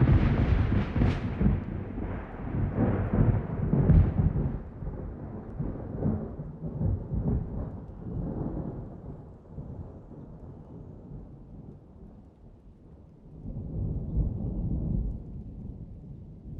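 Thunder: a loud rolling peal with sharp cracks about a second in and again around four seconds, rumbling and slowly fading over about ten seconds. A second, softer rumble swells near the end.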